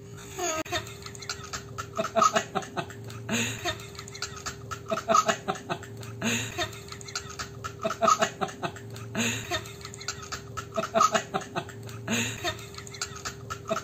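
Laughter in short, recurring bursts over a steady faint hum.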